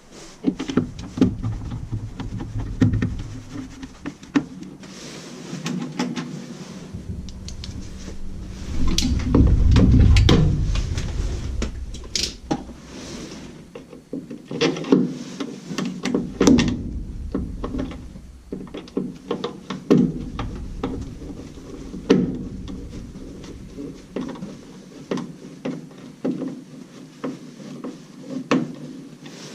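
Irregular knocks, clunks and rattles of hands-on work at a furnace: tools and metal parts being handled and bumped while a replacement inducer motor is fitted, with a few heavier thuds along the way.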